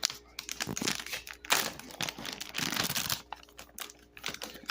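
Dog-treat bag crinkling in irregular bursts as it is handled to get a treat out, busiest in the middle.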